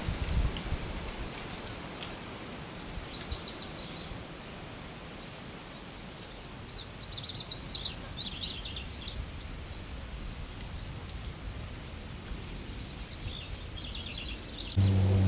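Lazuli bunting singing three short phrases of rapid, jumbled high notes a few seconds apart, over a steady background hiss. A loud, steady low hum cuts in abruptly just before the end.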